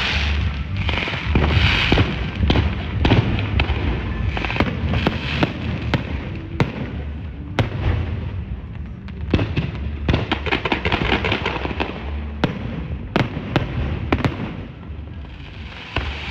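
Aerial fireworks going off: a run of sharp bangs and crackling pops over a steady low rumble, thickest into a rapid crackle about two-thirds of the way through.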